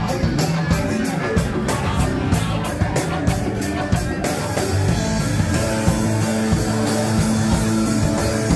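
Live rock band playing loud electric guitars, bass and drums, with sharp hits on a steady beat about three a second. About four seconds in the sound changes abruptly to a denser, fuller passage.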